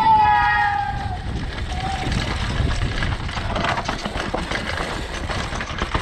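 Downhill mountain bike ridden fast down a rocky forest trail: tyres crunching over dirt and stones, with rattles and knocks from the bike. A high held tone fades out about a second in.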